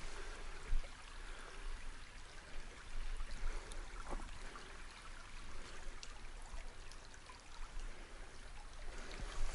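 A small brook trickling over stones, with a few faint knocks and rustles on top.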